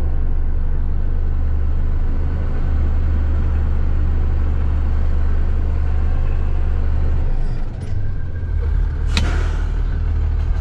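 Service truck's engine running with a steady low drone, heard from inside the cab while driving on a gravel road. The drone drops about seven seconds in, and a short, sharp burst of noise comes about nine seconds in.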